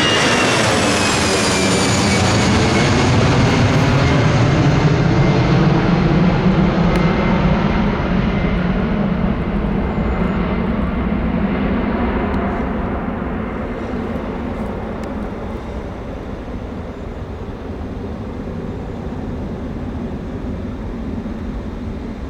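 Airbus A319 jet engines at takeoff power: a loud roar with a high whine that falls in pitch over the first few seconds as the airliner passes, then fades steadily away.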